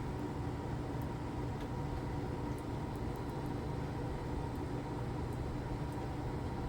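Triumph Scrambler 400X's single-cylinder engine idling with a steady hum.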